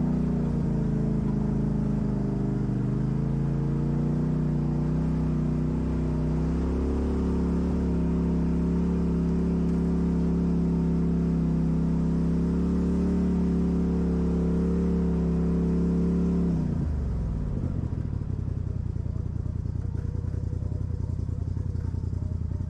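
Off-road vehicle's engine running at steady revs, stepping up in pitch about seven seconds in, then dropping sharply back to a pulsing idle about two thirds of the way through.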